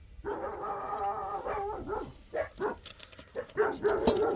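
A dog's long drawn-out call about a second and a half long, followed by a string of short barks.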